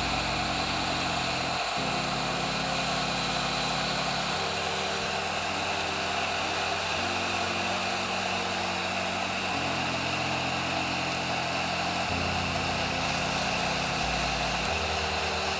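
Hot-air tool blowing steadily, heating a phone's glued-down circuit board to soften the adhesive.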